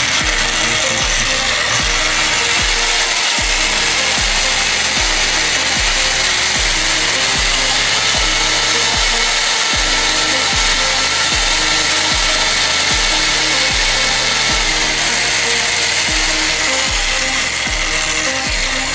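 Corded Bosch electric drill running steadily, its hole saw cutting into the hard plastic of a truck side-mirror housing.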